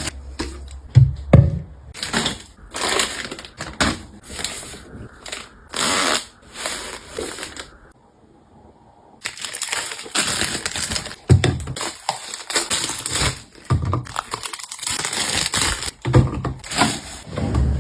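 Toiletry bottles, containers and packaging being handled and set down: irregular clicks and knocks with rustling and crinkling, broken by a short quiet pause about eight seconds in.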